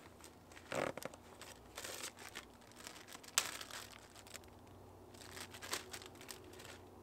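Plastic bait packaging rustling and crinkling in irregular bursts as it is rummaged for and handled in a cart, with one sharp click about three and a half seconds in.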